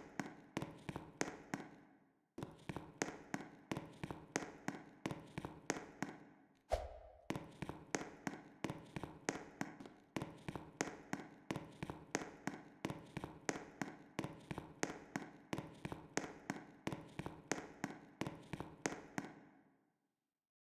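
Fire alarm signal sounding as a regular series of ringing chime strikes, about three a second. The strikes break off briefly about two seconds in and again near seven seconds, where a low thump comes just as they start again, and they stop shortly before the end.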